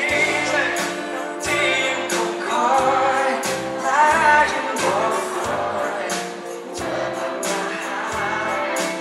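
Live band performance of a Thai pop song: a male lead voice sings over electric bass, electric guitar and drums, amplified through the stage PA.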